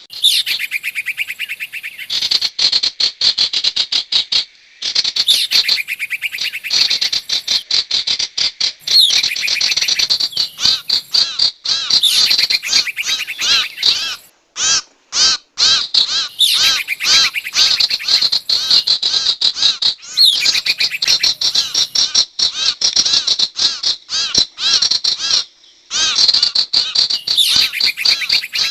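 Recorded sirtu bird calls played as trapping-lure audio: long runs of rapid, sharp, high chattering notes, broken by a few short pauses.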